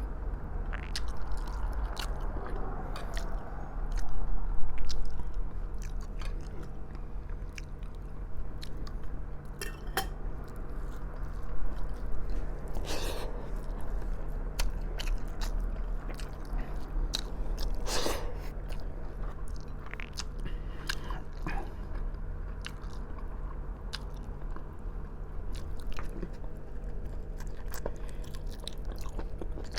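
Close-up mouth sounds of eating soft braised pork trotters (humba): wet chewing, biting and lip-smacking in many short, irregular smacks, over a steady low hum.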